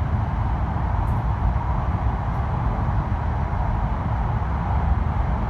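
Cabin noise of an E5 series Shinkansen train running through the Seikan Tunnel: a steady low rumble with a hiss of rushing air and track noise.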